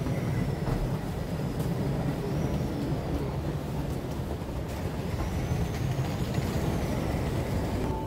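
Steady low rumble of vehicles, with a faint high-pitched whine that slowly rises and falls twice.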